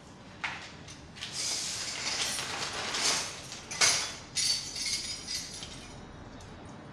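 Plastic wrapper holding bed-assembly hardware being unfolded and handled, crinkling in a run of rustles, with small metal screws and fittings clinking inside it.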